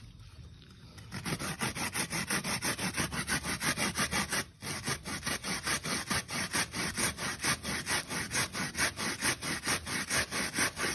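Young coconut flesh grated by hand on a flat metal grater: quick, even rasping strokes, about four or five a second, starting about a second in, with one short pause near the middle.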